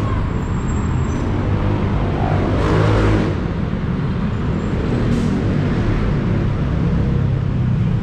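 Steady rumble of busy city road traffic, with a louder rush of noise swelling briefly about three seconds in and a shorter one about five seconds in, as from vehicles passing close by.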